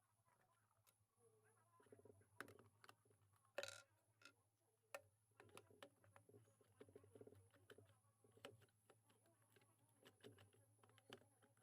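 Faint, irregular clicks and small taps of a table-top alarm clock being handled and taken apart, over a low steady hum.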